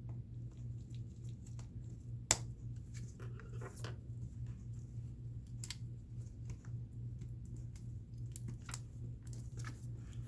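Light clicks and scraping of small parts being handled on a laptop, with one sharper click about two seconds in, over a steady low electrical hum.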